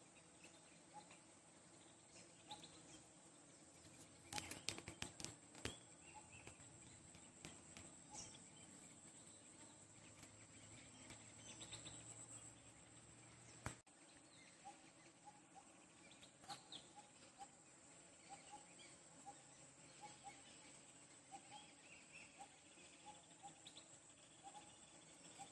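Faint wild ambience: a steady high insect drone, like crickets, with short chirps repeating about once a second. A cluster of sharp clicks comes about four to six seconds in, and a single sharp click comes about fourteen seconds in.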